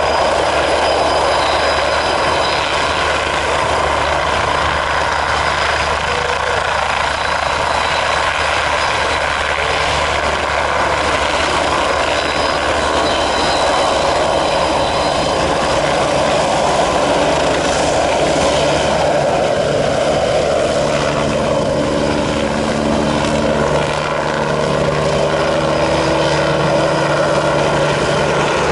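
MBB Bo 105 helicopter running steadily: main-rotor beat and the whine of its twin Allison 250 turboshaft engines as it hovers and then flies with an underslung load. The tone drops about two-thirds of the way through.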